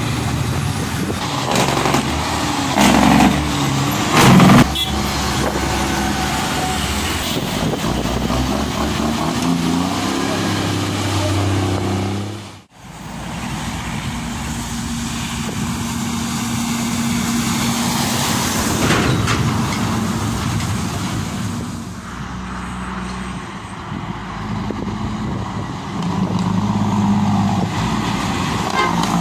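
Heavy diesel tractor-trailer trucks running as they pull away and drive past, with two loud short air hisses a few seconds in, typical of air brakes releasing. The sound cuts out for a moment about halfway through.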